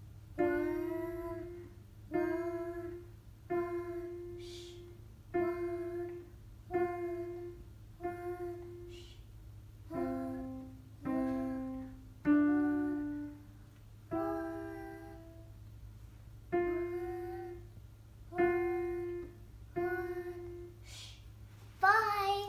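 Piano played slowly, one note at a time: a simple beginner's melody of about fourteen notes, each struck roughly every one and a half seconds and left to ring and fade, with a higher note near the end.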